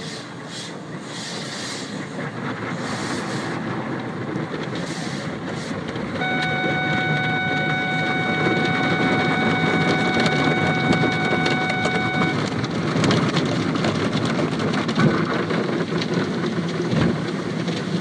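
Automatic car wash heard from inside the vehicle: water spray and foam beating on the windshield, a dense rushing that grows louder. About six seconds in, a steady whine starts and runs for about six seconds, and a few knocks come in the later part.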